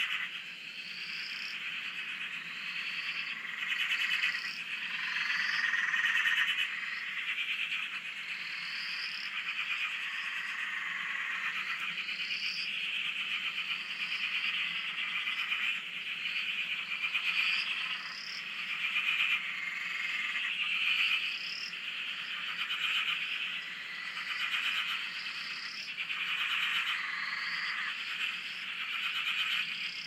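A chorus of many frogs calling at once: a dense, fast-pulsing trill that swells and eases, with short rising chirps repeating every second or two above it.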